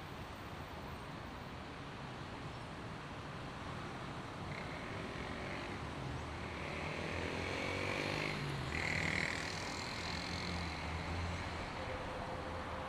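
Road traffic on a wet multi-lane avenue: a steady hiss of tyres and engine hum. Around the middle a vehicle's engine rises in pitch and grows louder as it passes, with a few brief high-pitched squeals.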